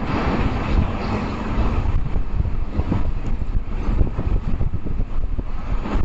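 Wind buffeting the microphone in irregular gusts over a steady background rumble of vehicle traffic.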